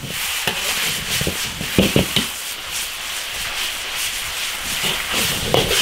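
Beef and chillies stir-frying in a large wok over high heat: steady sizzling, with a spatula scraping and tossing the food against the wok a few times.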